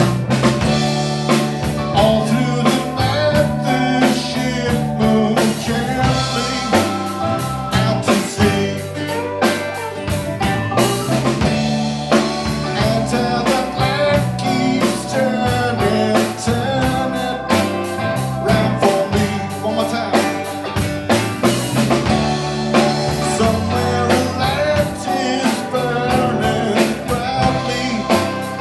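A live band playing a rock song with a steady beat: drum kit, electric lead guitar, bass guitar, acoustic guitar and keyboard.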